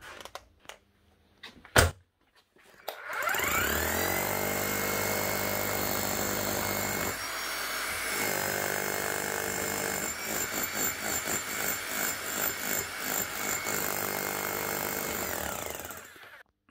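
Bosch GBH 5-40 DCE demolition hammer test-running after its broken striker pin was replaced: a sharp click, then the motor starts, rises quickly in pitch to a steady run, pulses unevenly from about ten seconds in, and winds down near the end.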